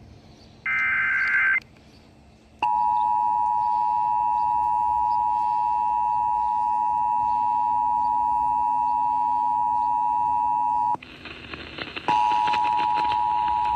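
Emergency Alert System signalling over a radio receiver. A short burst of digital header tones comes about a second in, followed by the steady two-tone attention signal for about eight seconds. The tone cuts off suddenly, and about a second later it starts again over static as the alert is relayed.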